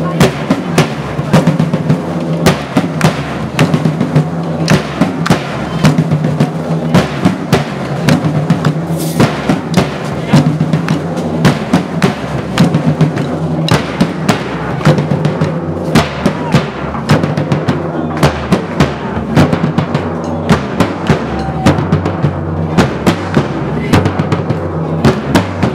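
Drums beating a steady, driving rhythm of many strikes a second without a break, with deep booming low drums under sharper hits.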